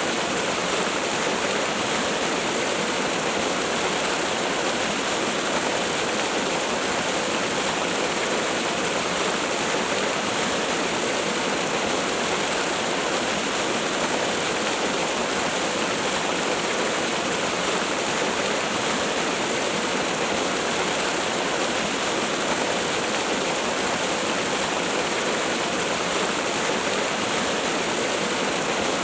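Falling water from a waterfall or cascade, a steady even rush with no change or distinct splashes, its weight in the middle and high pitches with little deep rumble.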